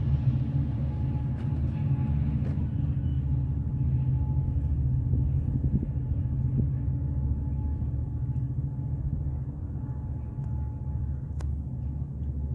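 Low, steady rumble of a diesel train off-screen, slowly growing fainter and losing its higher sounds.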